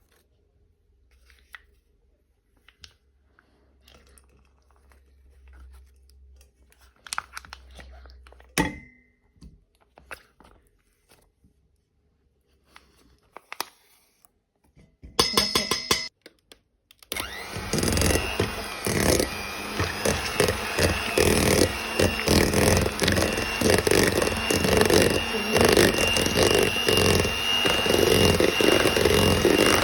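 Quiet kitchen handling with a few light clicks and knocks, then an electric mixer switches on about seventeen seconds in and runs steadily with a high whine to the end.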